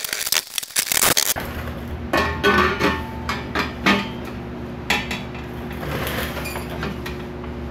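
Bent steel side-branch resonator pipe clinking and knocking against the car's exhaust and underbody as it is held up and test-fitted, with a steady low hum underneath. Scraping handling noise fills the first second and a half.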